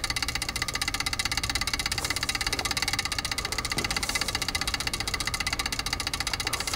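A steady, rapid pulsing drone, about ten pulses a second, with a few faint steady high tones on top: suspense sound design in a film soundtrack.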